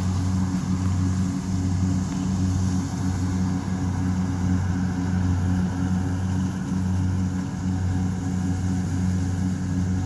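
Kubota rice combine harvester's engine running steadily under load while it harvests, a low even drone.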